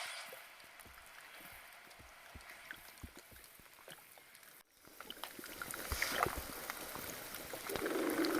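Underwater hydrophone recording of killer whales: scattered echolocation clicks over faint water hiss, a sudden brief break about halfway through, then a short call and a low buzzing sound near the end.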